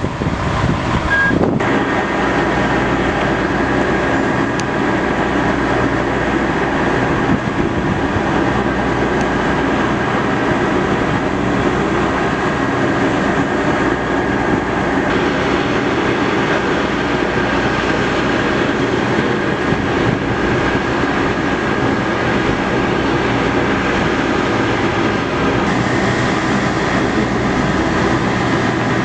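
Fire department ladder truck's diesel engine running steadily under load, a loud, even mechanical drone that holds one pitch, as it powers the raised aerial ladder.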